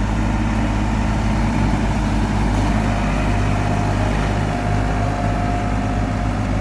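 Tractor engine running steadily at a low, even hum, with a faint high whine joining about three seconds in.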